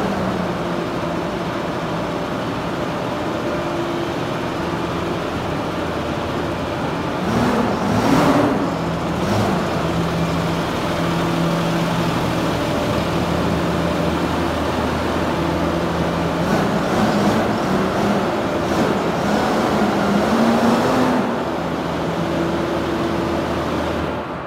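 Deutz-Fahr 6185 TTV tractor's six-cylinder diesel engine running after a cold start, its revs rising briefly about a third of the way in and again for a few seconds before dropping back to idle near the end.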